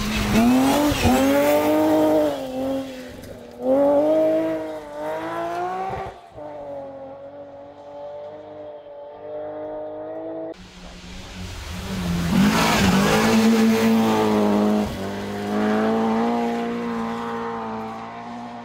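Rally car engines revving hard, their pitch climbing and dropping repeatedly with gear changes as the cars come through. After an abrupt cut about ten seconds in, another rally car's engine runs at a high steady note and then fades.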